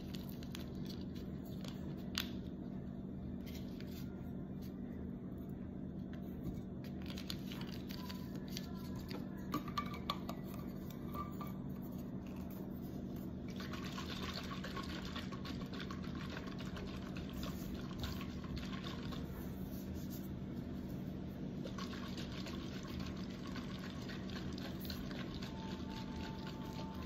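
A capped water bottle of drink mix being shaken, the water sloshing inside in two long spells in the second half. Before that only faint clicks and handling sounds, over a steady low hum.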